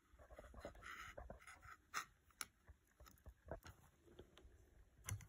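Near silence with faint handling noise: soft rustling and a scattered series of small clicks, the sharpest about two seconds in.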